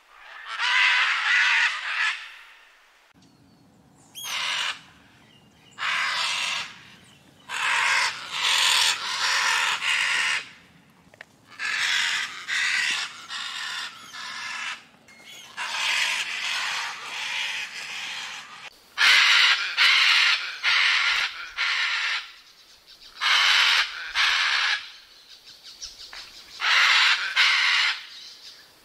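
Macaw screaming: a run of harsh, raspy squawks, each about a second long, repeated every second or two with short pauses between bursts.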